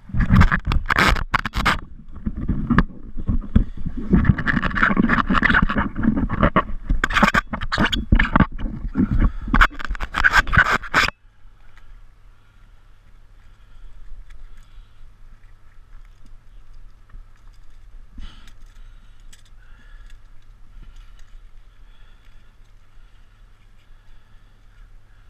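Close rubbing, scraping and knocking of diving gear and gloves against the head-mounted camera while the diver suits up, cutting off abruptly about eleven seconds in. After that, only a faint steady low hum with a thin higher whine remains, with one small knock later on.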